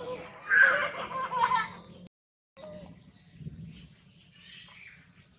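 High-pitched animal calls: a busy run of chirps and squeals for about two seconds. The sound then cuts out completely for a moment and comes back as scattered high chirps.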